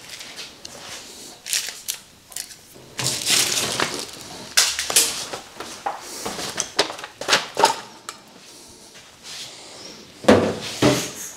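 Irregular clattering, rustling and knocks of objects being handled, with two sharper knocks about ten seconds in.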